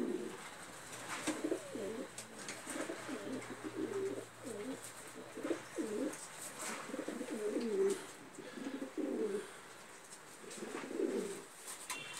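Domestic pigeons cooing: a run of low, warbling coos in short phrases, each about a second long, with brief pauses between them.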